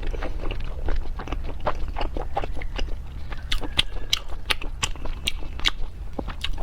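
A person chewing and biting food, with quick wet mouth clicks and crunches that grow sharper and brighter in the second half.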